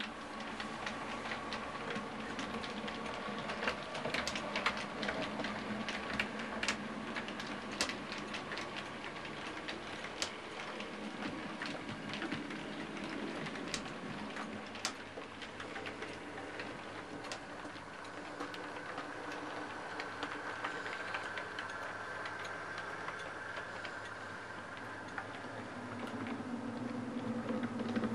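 OO gauge model trains running on the layout: small electric motors give a steady whine while the wheels click irregularly over rail joints and points.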